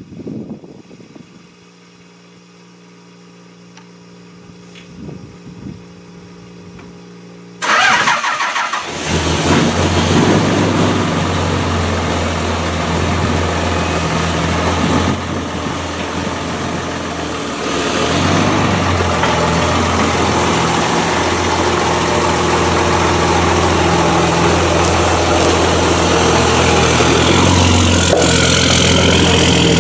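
A Dodge Ram 3500's 5.9 L Cummins turbo-diesel starting suddenly about eight seconds in, then running loud and steady at idle. A quieter steady hum is there before it starts.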